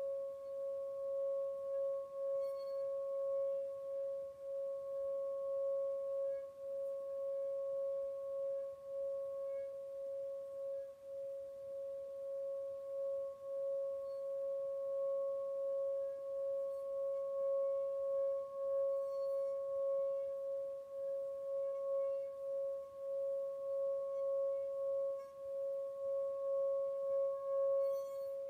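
Metal singing bowl sung by circling a wooden mallet around its rim: one steady, sustained tone with a fainter higher overtone, gently pulsing in loudness.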